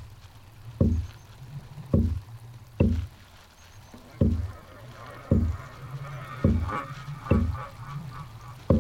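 A low, deep thud repeating steadily about once a second, each one dying away quickly; a faint higher crackling texture comes in about halfway.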